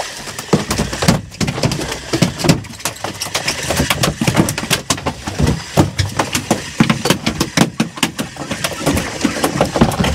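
Rapid, irregular knocking and clattering, several sharp knocks a second over a rough rumbling noise.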